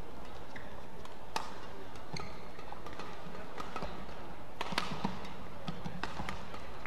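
Badminton rally: a series of sharp cracks of rackets striking the shuttlecock, the loudest about one and a half seconds in and near five seconds in, over a steady arena background.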